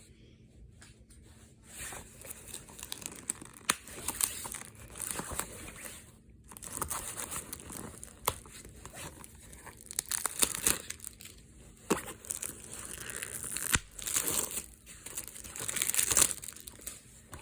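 Thin plastic wrapping being torn and crumpled, crinkling on and off with scattered sharp crackles, typical of shrink-wrap being pulled off a sealed movie disc case.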